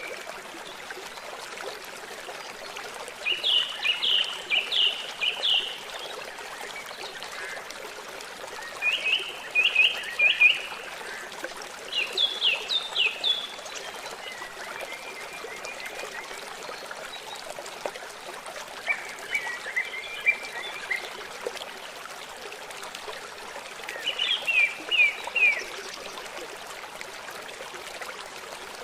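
A songbird singing phrases of quick, repeated short notes, about five phrases of roughly two seconds each with gaps of a few seconds between them. Underneath is a steady hiss of trickling running water.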